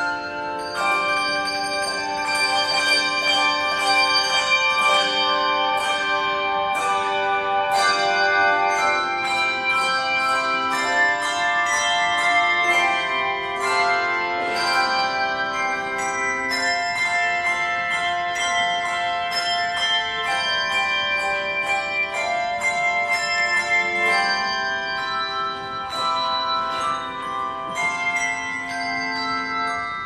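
Handbell choir ringing a hymn arrangement: many bells struck in chords and melody lines, each note ringing on after it is struck.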